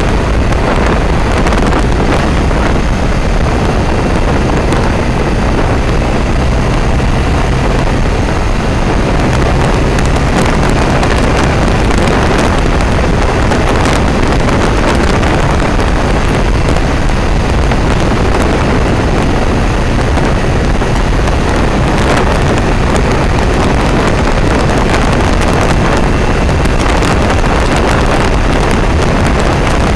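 Heavy, steady wind rush on the microphone of a camera on a moving motorcycle, with the engine's low hum running underneath.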